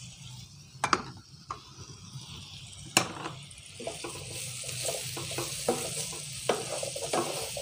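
Chickpeas, onion and chillies sizzling in oil in a nonstick frying pan, with a wooden spatula stirring and scraping against the pan from about four seconds in. Two sharp knocks, about one and three seconds in.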